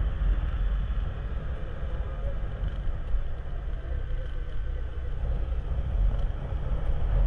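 Low, steady rumble of a moving motor vehicle: engine and road noise.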